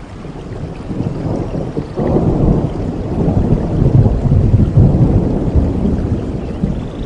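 Thunder rolling over steady rain: a deep rumble swells about two seconds in and keeps rolling, loudest around the middle.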